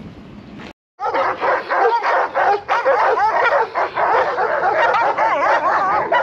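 Several dogs barking, yelping and whining all at once, starting abruptly about a second in, with wavering whines mixed among the barks.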